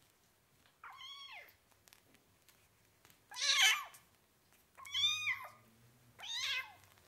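Domestic cat meowing four times, a second or so apart. Each meow is a short call that rises and then falls in pitch, and the second one is the loudest.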